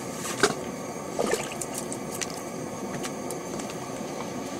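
Steady hiss of a small gas heater's burner flame, with a couple of short clicks from handling the ice-fishing rod and line about half a second and a second in.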